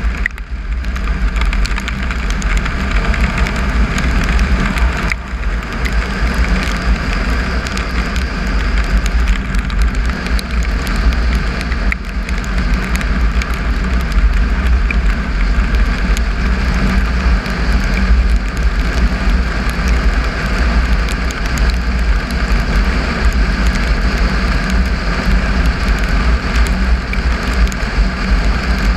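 Triumph Tiger 955i three-cylinder motorcycle riding steadily along a gravel road, heard as continuous wind buffeting on the microphone mixed with engine noise and the tyres on loose gravel.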